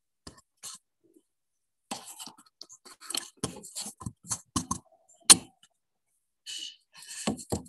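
Handling noise from a camera being picked up and repositioned: irregular clicks, knocks and rattles. The single sharpest knock comes about five seconds in, with more clatter near the end.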